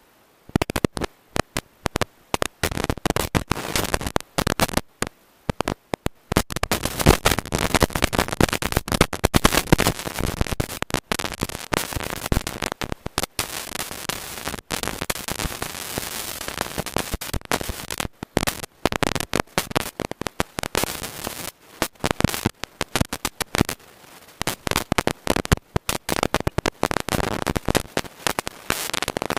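Wind buffeting the microphone: a dense, irregular crackling noise that comes and goes in gusts, dropping out briefly near the start and again about five seconds in.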